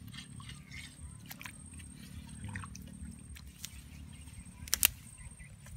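Footsteps squelching through wet mangrove mud and brush over a steady low rumble, with scattered small clicks. One sharp crack, the loudest sound, comes near the end.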